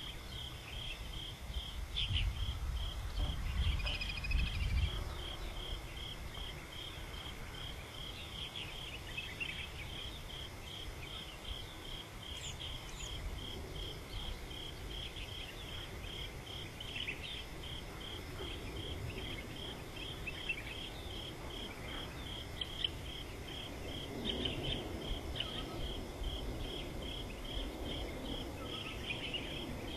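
Insects chirping in a steady, evenly pulsed rhythm, with a brief low rumble a few seconds in.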